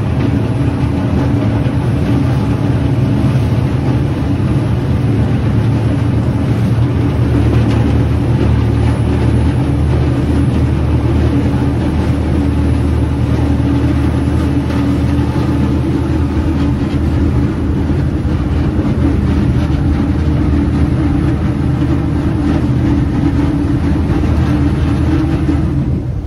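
A motorboat's engine running steadily under way, a low drone mixed with the rush of the wake churning behind the stern.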